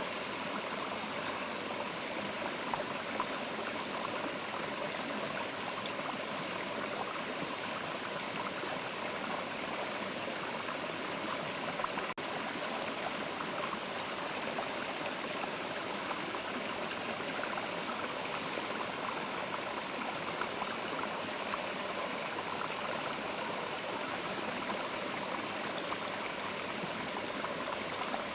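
Mountain river flowing: a steady, even rushing of water.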